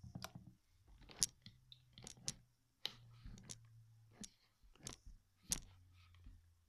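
Yellow jiggly slime squeezed and pressed by fingers, giving a dozen or more short, sharp, irregular wet clicks and pops.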